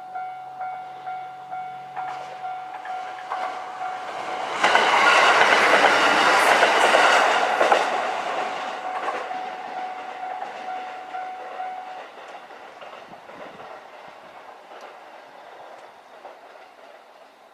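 Japanese level-crossing bell ringing about twice a second as a JR West KiHa 127 diesel railcar passes. The train comes in suddenly and loud, with its wheels clattering over the rails for a few seconds, then fades away. The bell stops about two-thirds of the way through.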